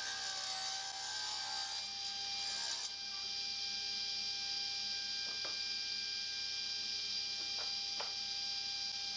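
Sliding-table saw running with its steady blade whine, cutting a thin strip off a small wood block for about the first three seconds, then spinning free. A few light knocks come near the middle and end as the block is set up for the next pass.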